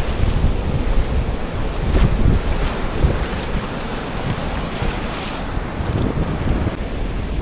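Wind buffeting the microphone over the steady wash of sea waves breaking on a beach.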